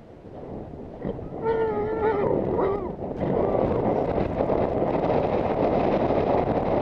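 Galloping horse's hoofbeats, then wind rushing loudly and steadily over the rider's helmet-camera microphone from about three seconds in. A short, high, wavering voice call comes about a second and a half in.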